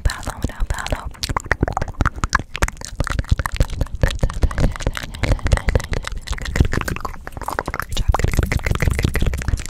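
Fast ASMR mouth sounds made right at a condenser microphone: rapid wet clicks and smacks, with hands flicking and brushing close to the mic. From about eight seconds in a low rumble joins as a hand moves over the microphone.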